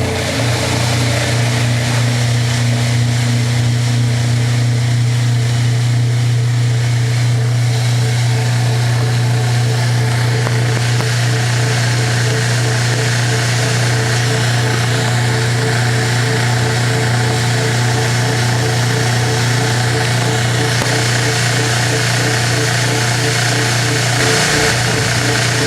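Washing machine running with its cabinet removed, its motor giving a loud, steady hum.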